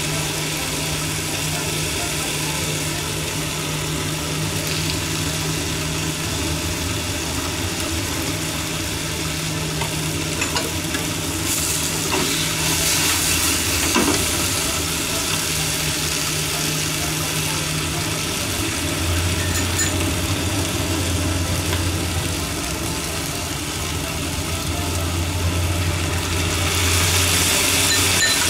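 Shishito peppers and chikuwa sizzling in a nonstick frying pan as they are stir-fried with a sweet-salty seasoning, with the frying getting louder about twelve seconds in and again near the end. A steady low hum runs underneath.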